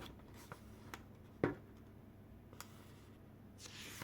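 Faint room tone with a few small clicks and one sharper tap about a second and a half in: handling noise.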